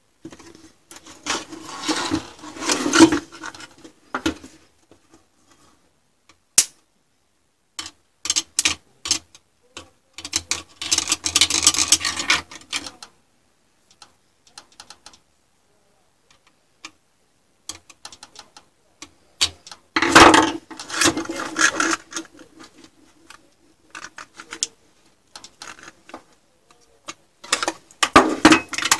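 A PC power supply's metal case and heatsink-laden circuit board being handled and pulled apart by hand: irregular bursts of scraping, rubbing and clicking, with quiet gaps between them.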